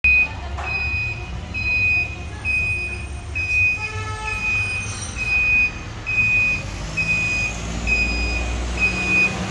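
Vehicle reversing beeper sounding a high electronic beep about once every 0.8 seconds, over a steady low rumble of traffic. A brief lower multi-note tone cuts in about four seconds in.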